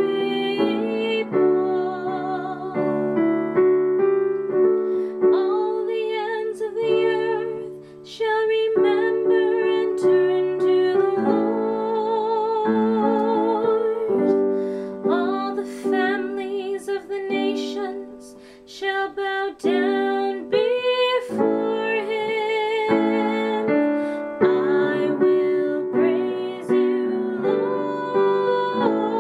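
A sung responsorial psalm setting: a solo voice singing the refrain and a verse with vibrato over piano accompaniment, with two short breaths in the music about a third and two thirds of the way through.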